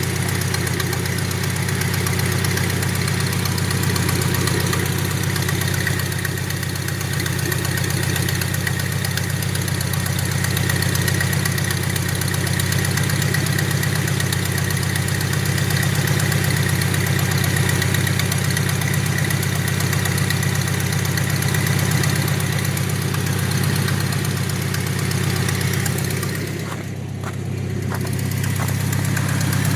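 Nissan 720 pickup's four-cylinder engine idling steadily, its level dipping briefly near the end.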